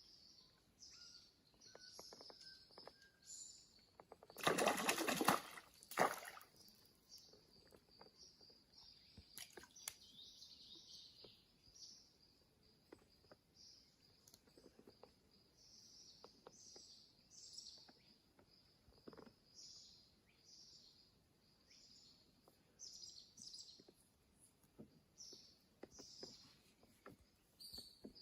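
Birds chirping with short, high calls again and again. About four and a half seconds in comes a loud rushing noise lasting about a second and a half, with a shorter one just after it.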